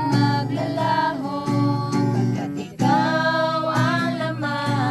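Several women's voices singing a song together to a strummed acoustic guitar.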